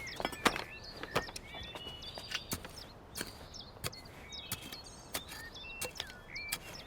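Irregular sharp taps and clicks of small-scale digging and planting in garden soil, with short bird chirps throughout.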